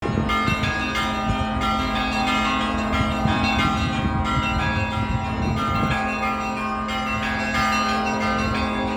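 Bells of St. Isaac's Cathedral ringing, several bells struck over and over with overlapping tones. A low bell tone hums on throughout while higher bells strike again and again.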